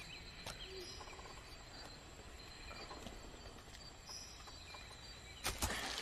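Quiet outdoor garden ambience with faint bird and insect sounds and a few small ticks. About five and a half seconds in, a sudden louder rustling thump as a man drops from a wall into thick undergrowth.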